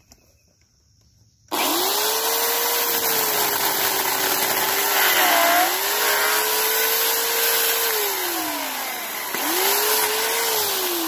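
Electric chainsaw starting up about a second and a half in and running with a steady high whine as it cuts into a tree branch, its pitch dipping briefly under the load of the cut. It winds down, is triggered again near the end, and winds down once more.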